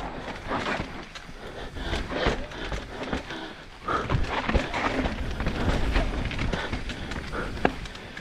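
Enduro motorcycle ridden over rough, rocky trail, heard from the rider's helmet camera: a rough low rumble with irregular knocks and clatter as the bike bounces over rocks.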